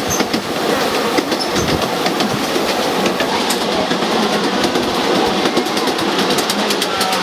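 Miniature ride-on train running along its track: a steady rumble with scattered clicks of the wheels on the rails.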